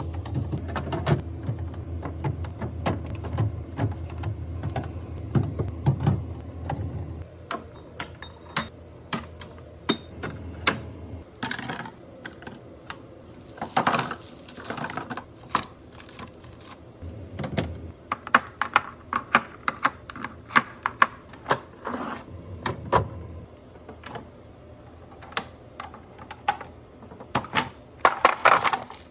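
Irregular clicks, taps and knocks of plastic and glass food containers, lids and cans being handled and set onto refrigerator shelves, with a few short rustling bursts.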